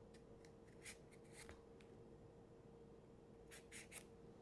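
Vegetable peeler scraping the skin off a butternut squash in a few short, faint strokes, three in quick succession near the end, over a faint steady hum.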